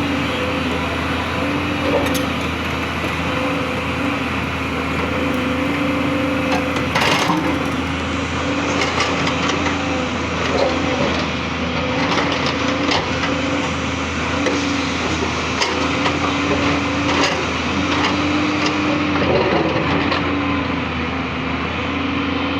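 JCB 3DX backhoe loader's diesel engine running steadily under working load, its pitch dipping and recovering slightly. Over it come scattered sharp cracks and knocks as the bucket breaks up the road surface, the loudest about seven seconds in.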